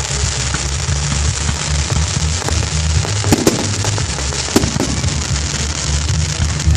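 Fireworks crackling continuously, with sharp bangs now and then, over music with a pulsing bass.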